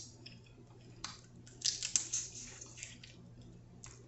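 Snow crab shell crackling and clicking as fingers pick it apart: a single snap about a second in, a quick cluster of crackles midway, and one more click near the end.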